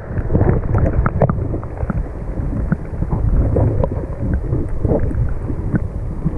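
Lake water churning around a camera held just under the surface, heard as a muffled low rumble with scattered small knocks and clicks. A hand is moving a perch about in the water to release it.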